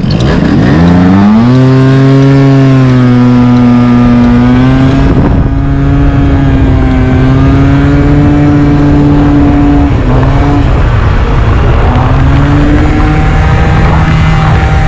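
Scooter engine pulling away from a stop: its pitch climbs steeply over the first second or so, then holds a steady drone at road speed, dipping briefly a few times. Wind rumbles over the helmet-mounted camera. The rider says this scooter takes off really badly.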